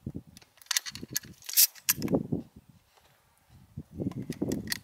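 Shells being handled and pushed into a Remington 870 pump shotgun's tube magazine: a string of sharp clicks and metallic rattles, the loudest about a second and a half in, with duller handling knocks between.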